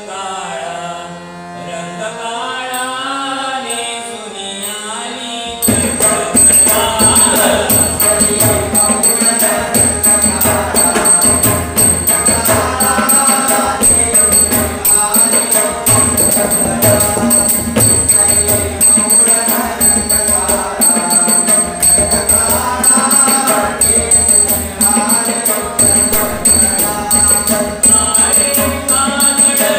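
Marathi devotional bhajan music: voice and harmonium melody, joined suddenly about five seconds in by the pakhawaj barrel drum and jhanj hand cymbals, which keep a steady rhythm louder than the melody.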